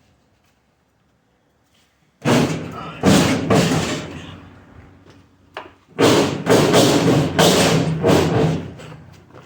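Loud metal banging and clattering on a stainless steel dishwasher's frame, in two bouts of several heavy hits each, with a low ringing behind them.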